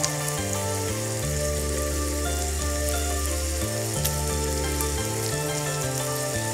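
Background music with held chords that change every second or so, over the sizzle of sliced pork frying in a pan.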